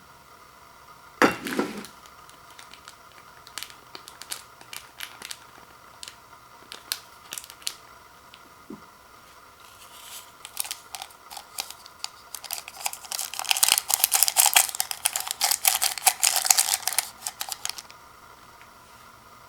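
Plastic instant-noodle packaging crinkling and rustling as it is handled: a sharp crinkle about a second in, scattered light crackles, then a long dense stretch of crinkling that stops near the end.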